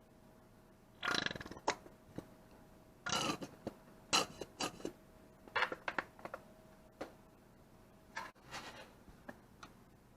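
Hand-tool and parts handling during gearbox work: a series of short clicks, clinks and brief rasping bursts, irregularly spaced over several seconds.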